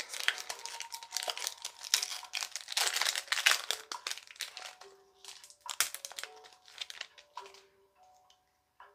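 Foil wrapper of a Pokémon booster pack crinkling and tearing as it is opened by hand. It is busy for about four seconds, then thins to scattered crackles near the end.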